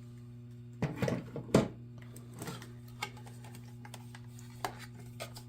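Hard plastic clicks and knocks of a cordless stick vacuum's parts being handled, a cluster about one to one and a half seconds in and a few single clicks later, over a steady low hum.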